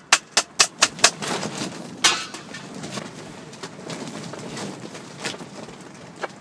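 Round metal garden sieve of compost knocked sharply against a bucket rim about four times a second to shake the compost through, then the compost rustling through the mesh. About two seconds in there is a scrape of metal as the sieve is set down, followed by quieter rustling and a couple of single knocks.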